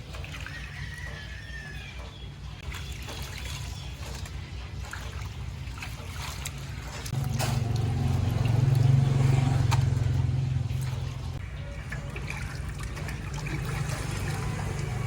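Water trickling and pouring steadily, swelling louder for a few seconds around the middle, with a few light clicks.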